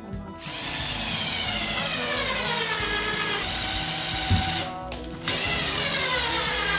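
Cordless impact driver with a drill bit boring pilot holes into wooden bed slats, because the screws would not go in without them: two long runs of motor whir separated by a short pause, the pitch falling each time as the bit bites into the wood. Background music plays underneath.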